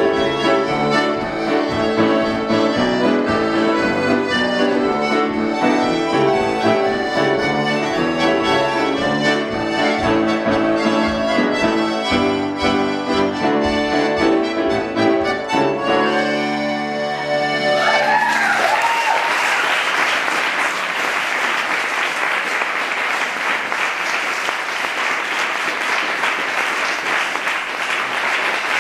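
Piano accordion and grand piano playing a tune together, ending on a held chord about sixteen seconds in. An audience then applauds, with a whoop as the clapping starts.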